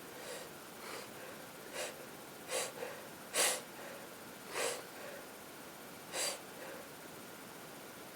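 A woman with a head cold making a string of short, sharp breaths through a stuffy nose, sniffs and snorts, about eight of them at uneven spacing that stop about two-thirds of the way through.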